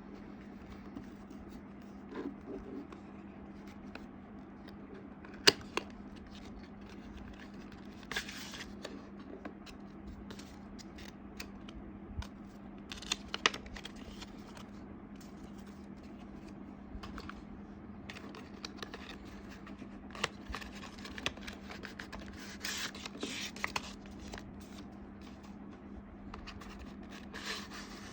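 Scattered clicks, scrapes and rustling from hands handling small computer parts and packaging, with a sharp click about five seconds in, over a steady low hum.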